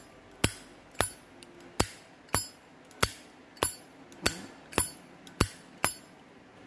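Vintage Zippo lighter's hinged chrome lid flicked open and snapped shut over and over: sharp metallic clicks a little under two per second, each with a brief bright ring. It is a nice, crisp lid sound.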